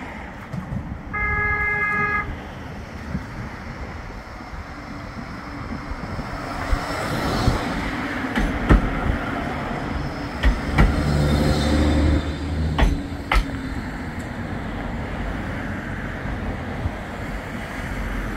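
Bombardier Flexity 2 tram approaching and passing close by: its horn sounds once for about a second near the start, then its running noise grows as it goes past, with a low motor hum and a few sharp clicks from the wheels on the track, fading towards the end.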